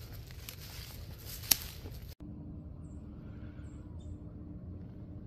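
Dry leaf litter rustling and crackling, with one sharp click about one and a half seconds in. It cuts off suddenly about two seconds in, leaving a quieter steady low hum and a few faint high chirps.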